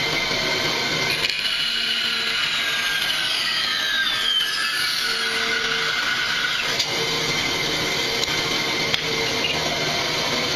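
Bandsaw running and cutting through a thick block of wood, a steady machine noise throughout.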